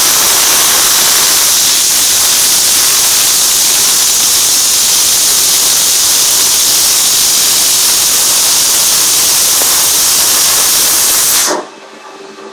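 MAG welding arc on steel railing posts: a loud, steady hiss that stops abruptly about eleven and a half seconds in as the weld ends.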